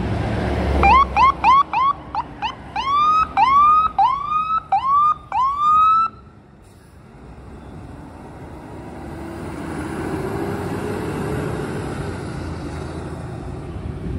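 Fire ladder truck's electronic siren giving a run of quick rising yelps that lengthen into slower rising whoops, then cutting off abruptly about six seconds in. After that the truck's engine and tyres swell as it drives past.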